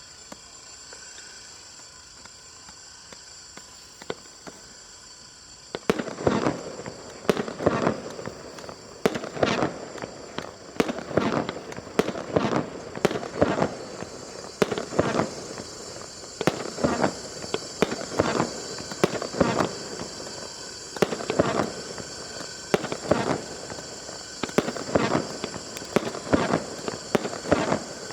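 Fireworks going off in a long series of sharp bangs, about one or two a second, starting about six seconds in. Before that only a steady high hiss is heard.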